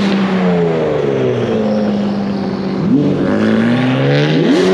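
Sports car engine revving: the revs sink over the first two seconds or so, then climb sharply twice in the second half.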